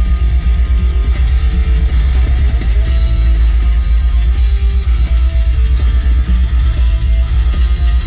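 Rock music with guitar and drums, loud and steady.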